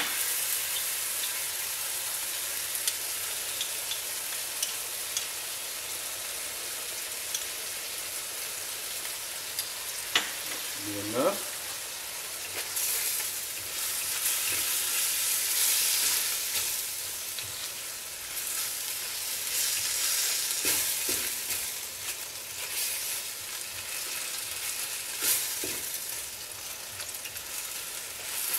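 Pork and napa cabbage sizzling in a hot cast iron wok while being stir-fried, with the spatula clicking and knocking against the wok now and then. The sizzle swells and fades in waves as the food is tossed, at the stage where cornstarch slurry goes in to thicken the sauce, and a short rising squeak comes about eleven seconds in.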